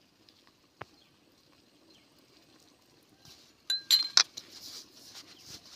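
A steel spoon clinking against a glass bowl a few times about four seconds in, the clinks ringing briefly. Around them is a soft rustle of hands rubbing flour in a bowl.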